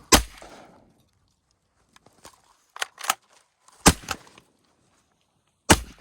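Shotgun fired three times at ducks: one shot at the very start, another about four seconds in and a third about two seconds later, each a sharp report. Fainter clicks and knocks come between the first and second shots.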